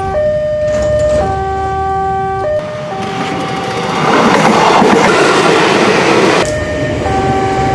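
Electronic level-crossing alarm switching about once a second between a single tone and a higher chord-like tone. About four seconds in, a passing electric train's noise covers it for roughly two and a half seconds, then the alarm comes back.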